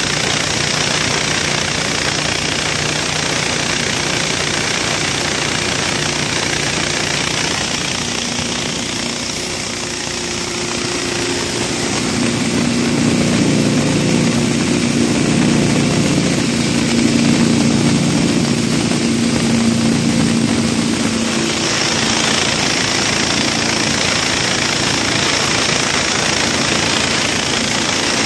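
Small single-cylinder petrol engine driving a belt-driven corn grinding mill, running steadily under load as it mills shelled corn kernels into meal. The running gets louder and heavier for several seconds in the middle.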